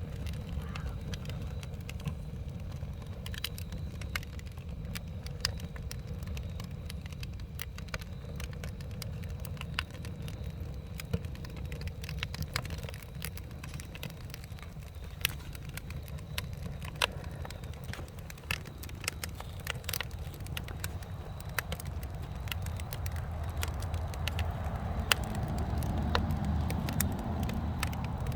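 Wood campfire burning: frequent sharp crackles and pops over a steady low rush, the rush swelling louder near the end.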